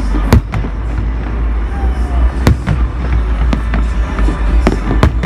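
Aerial fireworks shells bursting overhead: about half a dozen sharp bangs at irregular intervals, the loudest just after the start, over a steady low rumble.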